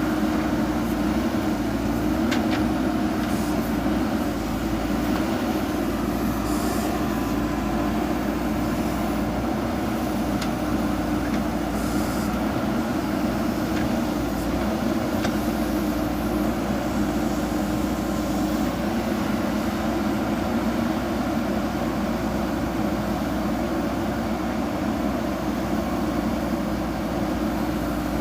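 JCB backhoe loader's diesel engine running steadily under work, with a few faint clicks over it.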